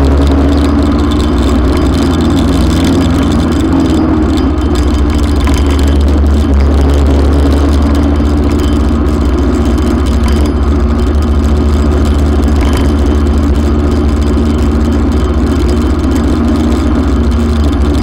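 Motorcycle engine running steadily at low speed while filtering between queued traffic.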